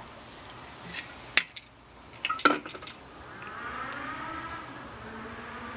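Sharp clicks and clinks of a drinking bottle being handled and capped: single knocks about a second in, then a quick cluster of clinks near the middle. After that a faint, muffled voice.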